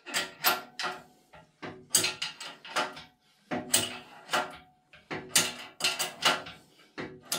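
Metal clinks and clicks from an adjustable wrench working the nut on a lathe banjo's clamping plate while the banjo's locking lever is repositioned. The clicks come in irregular pairs about every half second, each with a short metallic ring.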